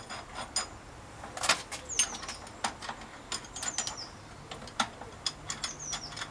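Scattered metallic clicks and clinks of threaded rod, washers and nuts being handled and fitted together as a homemade headset press is set up. A few short, high, falling chirps sound now and then.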